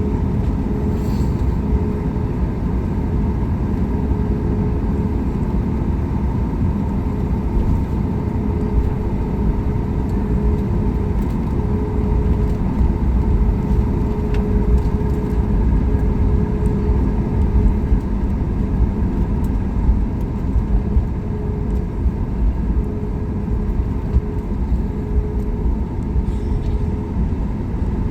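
Cabin noise of a Boeing 737 MAX 8 taxiing, heard from inside the cabin: a steady low rumble with the CFM LEAP-1B engines running at taxi power and a couple of steady tones humming over it.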